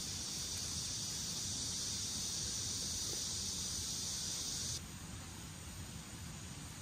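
Steady, high-pitched insect buzzing that stops abruptly about five seconds in, leaving a quieter outdoor background.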